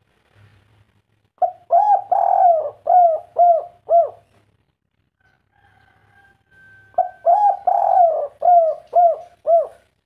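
Spotted dove singing twice. Each phrase has a couple of short coos, one long drawn coo, and then three short clipped coos: the ending that keepers call 'kuk 3'.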